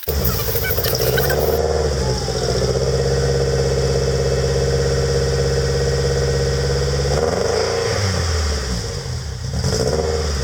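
Toyota Celica engine running steadily through its exhaust, with its pitch shifting after about seven seconds and again near the end as the revs change.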